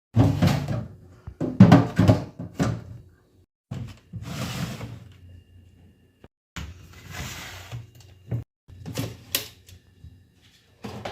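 Knocks and clunks of containers, shelves and drawers being handled and set in place inside a refrigerator, with two stretches of rustling a few seconds in.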